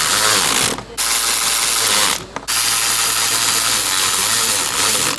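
Cordless power tool driving a fastener, running in three loud bursts with two brief pauses, about a second in and about two seconds in, then stopping near the end.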